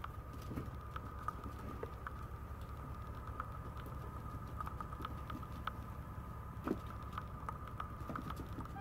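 A Maltese puppy's claws tapping and clicking on a hard floor as it scampers about, in irregular light taps with a louder knock about two-thirds of the way through. A faint steady tone runs underneath.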